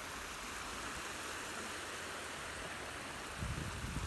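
Small waves washing onto a sandy beach: a steady, even hiss, with a brief low rumble near the end.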